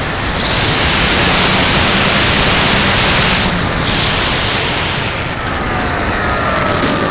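Wind rushing over the onboard camera microphone of an FPV radio-controlled plane in a steep dive, a loud steady hiss that eases off after about three and a half seconds as the plane pulls out. The whine of its motor and propeller then comes through, falling in pitch.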